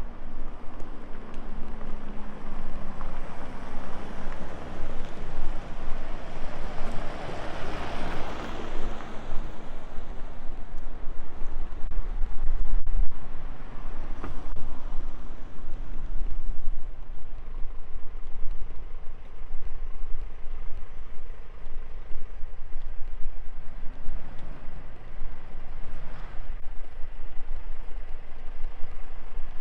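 A motor vehicle passing by, its tyre and engine noise swelling to a peak about eight seconds in and then fading, over a steady low rumble.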